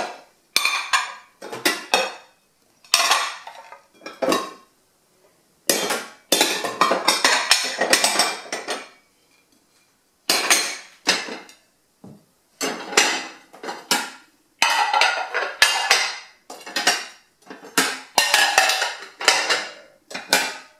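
Ceramic dinner plates and bowls clattering and clinking against each other as they are lifted from stacks and set down again, in repeated short bursts with brief pauses.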